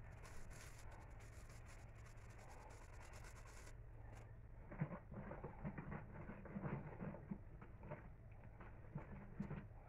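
A spoon scraping and knocking against a large stainless steel bowl as flour is stirred into thick fruit cake batter, in an irregular rhythm starting about five seconds in. Before that there is only a faint steady hum.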